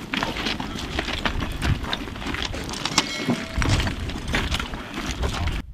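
Rough outdoor field noise: a steady low rumble with many scattered clicks and knocks, cutting off suddenly near the end.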